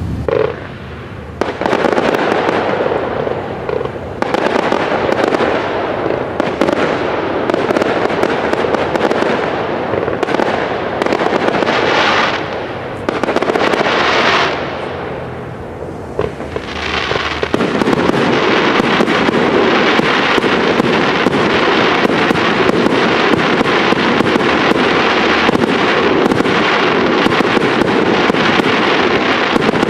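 Aerial fireworks display: a continuous barrage of shell bursts and crackle, with two hissing swells about twelve and fourteen seconds in. From about halfway on it becomes a steady, dense crackle of many rapid small reports.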